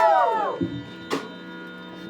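Small audience whooping and cheering, dying away within the first half second, leaving a faint steady hum underneath with one short sharp sound about a second in.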